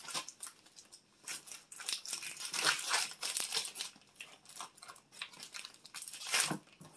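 Plastic sausage wrapper crinkling and crackling as a kielbasa is worked out of its package by hand, in irregular spurts, loudest about three seconds in and again near the end.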